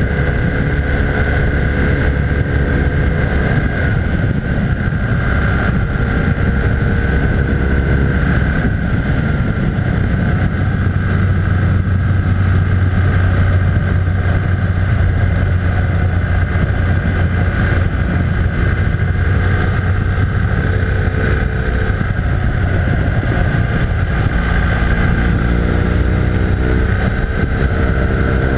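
BMW R1200R LC's liquid-cooled boxer twin running steadily under way on the road, its note shifting slightly near the start and again near the end, with wind noise over it.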